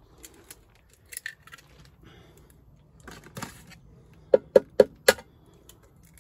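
Eggs being cracked: light clicks of shell early on, then four sharp taps about four to five seconds in as the second egg is knocked against an edge to crack it open.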